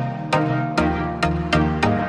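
Background music: an electronic track with a steady beat, about two strikes a second, over held notes.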